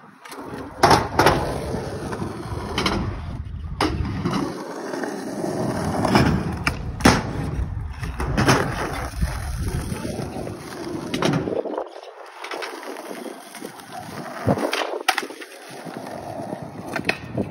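Skateboard wheels rolling over concrete, broken by many sharp clacks of the board popping and landing during tricks.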